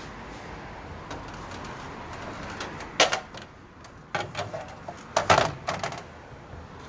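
A few sharp clicks and knocks in small clusters, the loudest about three seconds in and more between four and six seconds, over a steady low hiss.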